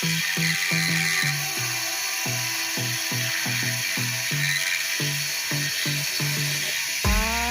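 Background music with a quick stepping melodic line, over the steady high whine of a mini lathe running.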